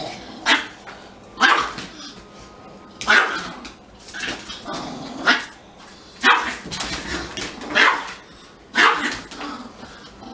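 A Pomeranian barking in sharp yaps, about eight barks at uneven intervals, some in quick pairs. It is warning off a much larger dog that is trying to sniff her.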